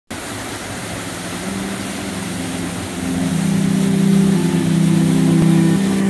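Small waterfall's steady rushing water, with a low hum of held notes that step to new pitches every second or so and grow louder about halfway through.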